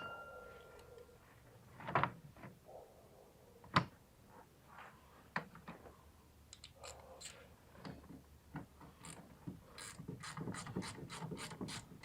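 Quarter-inch drive ratchet clicking as it turns a bolt on the van's engine mount, in a quick even run of about four to five clicks a second over the last three seconds. Scattered single knocks and clinks of tools on metal come before it.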